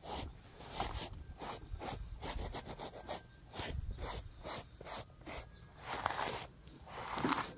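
Stiff-bristled grooming brush stroked through a horse's mane and coat: a run of short brushing scrapes, about two or three strokes a second.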